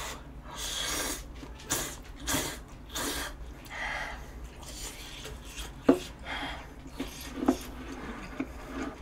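A person slurping a mouthful of ramen noodles in several quick hissing sucks, then chewing with a few wet mouth clicks.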